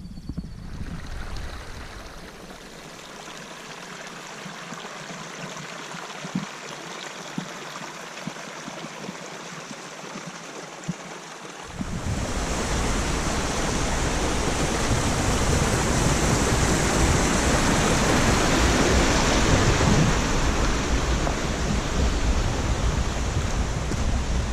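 A stream rushing, a steady hiss of flowing water that jumps suddenly much louder about halfway through. Before that the water is faint, with a few light taps.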